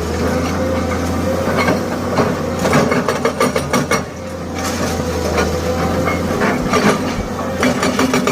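Excavator-mounted hydraulic breaker hammering concrete in rapid, repeated blows that come in short spells and run on steadily near the end, over the excavator's diesel engine running.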